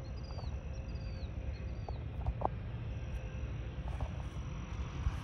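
Outdoor ambience: a fluctuating low rumble, a faint steady high whine and a few short bird chirps.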